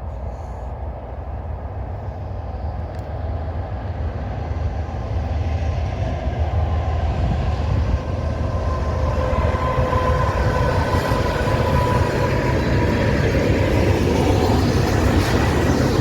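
Train approaching, the deep rumble of its locomotives and wheels on the rails growing steadily louder.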